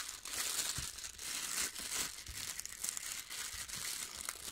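Thin clear plastic wrapping crinkling steadily as it is worked off an eyepiece by hand, a dense crackle of many small clicks.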